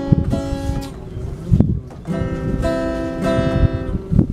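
Acoustic guitar being strummed, its chords ringing out: a first strum, a sparser moment about a second in, then steady strumming from about two seconds in.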